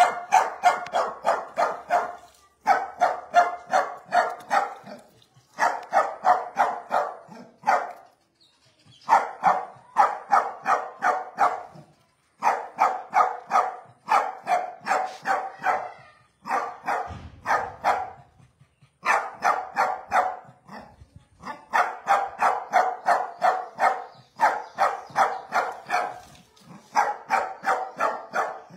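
A dog barking in rapid runs, several sharp barks a second, each run lasting two to three seconds with brief pauses between.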